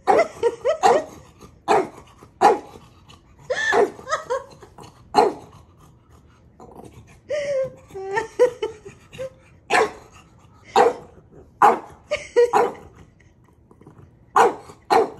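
French bulldog play-barking at another dog: a string of short, sharp barks about once a second, some drawn out into whiny, wavering yelps, with a couple of brief pauses.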